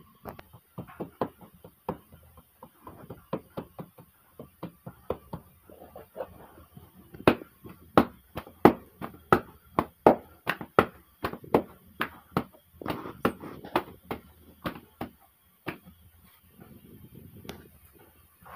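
Flatbread dough being slapped and patted by hand as it is stretched thin over a stuffed bread cushion: a steady run of sharp pats, about two a second, loudest midway, that stop a few seconds before the end, followed by softer rubbing.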